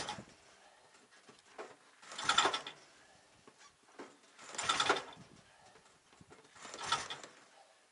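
Recoil pull-starter being yanked on a Buran snowmobile's two-stroke engine, four short whirring pulls about two seconds apart. The cold engine turns over on each pull but does not catch.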